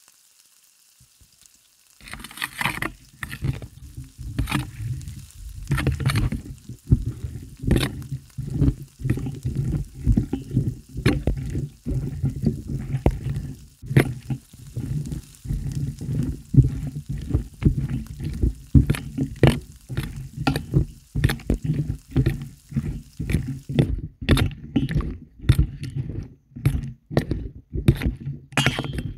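A spatula stirring and scraping paneer cubes, onion and tomato through freshly added spice powders in a non-stick pan, in quick repeated strokes, with the food sizzling. It starts about two seconds in.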